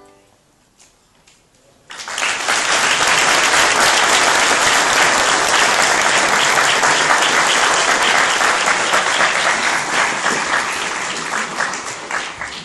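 Audience applauding in a hall: after a brief hush, the clapping breaks out all at once about two seconds in and keeps going steadily, easing slightly near the end.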